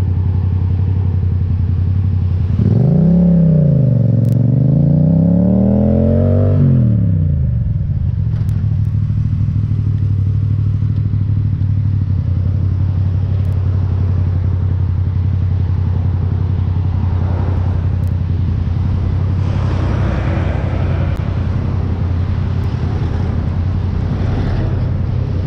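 Yamaha MT-07's parallel-twin engine through an Akrapovic exhaust, running at low revs. A few seconds in it pulls away, the note rising and falling twice as it accelerates through the gears, then it settles back to a steady low beat.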